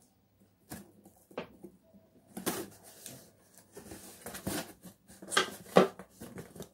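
Hands handling a taped cardboard shipping box and a pair of scissors: a string of irregular scrapes, taps and clicks as the box is worked at to get through the tape seal, the loudest one near the end.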